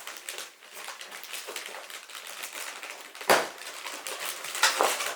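Packaging rustling and crinkling, with small clicks and knocks as parts are handled out of the box; a sharp knock about three seconds in and another near the end.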